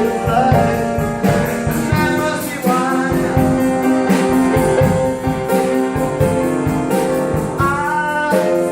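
A live band playing the song with no words sung: guitar over a steady drum beat.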